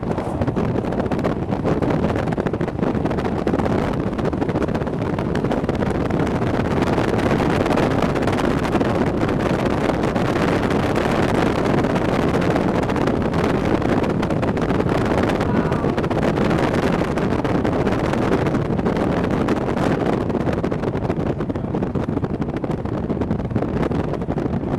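Steady rushing wind noise buffeting the microphone, with no distinct events.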